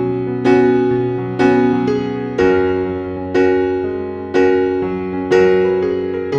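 Background music: slow keyboard piano, with a chord struck about once a second and each left to ring and fade.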